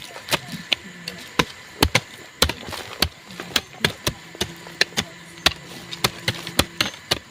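Hand tools striking over and over, two or three sharp blows a second at uneven spacing, as several people chop and hoe the ground while clearing a field.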